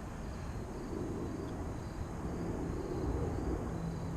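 Lockheed C-130 Hercules four-engine turboprop passing, heard as a low, steady droning rumble; a steady hum comes through more clearly near the end.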